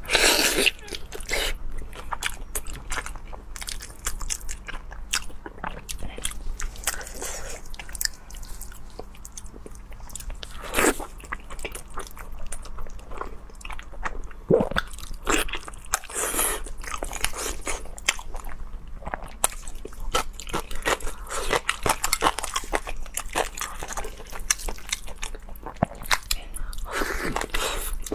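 Close-miked mouth sounds of a person biting and chewing braised cow hoof: a dense run of short, irregular bites, smacks and chews.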